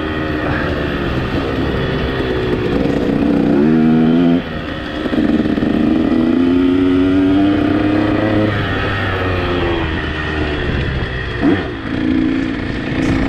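Two-stroke motocross bike engine revving hard and backing off over and over as it is ridden round the track, its pitch climbing and then dropping sharply. A brief loud knock comes near the end.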